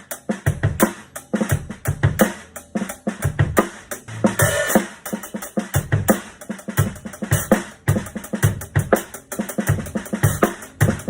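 Drum kit groove played with a towel laid over the snare drum's head to damp it, with kick drum strokes underneath. A denser, noisier patch comes about four and a half seconds in.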